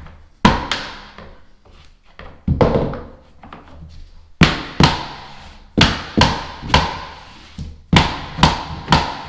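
Hammer knocking on a plastic tapping block to drive a glued laminate floor plank sideways into its joint. The sharp knocks come in pairs with pauses at first, then about two a second through the second half.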